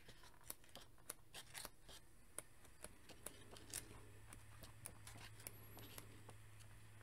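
Faint flicking and rustling of a comic book's paper pages being turned by hand, a string of soft, irregular ticks over a low steady hum.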